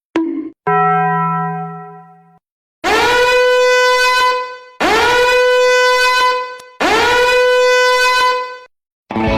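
Meme sound effects played back to back: a short click and blip, then a buzzy held tone that fades away, then three identical long horn-like blasts, each sliding up into one steady note, about two seconds apart.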